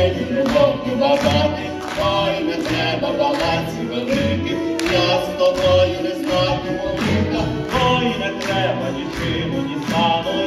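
Stage duet in folk style: voices singing a love song over instrumental accompaniment with a steady beat, with long held notes.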